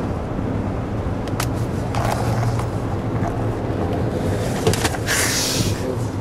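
Steady low road rumble inside a moving car's cabin, with a few sharp clicks and a short hiss about five seconds in.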